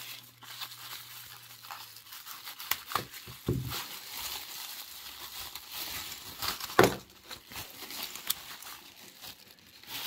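Light metallic clicks and rustling as a key is worked in a small round brass lock and the lock is handled in the fingers, with a sharper knock about seven seconds in.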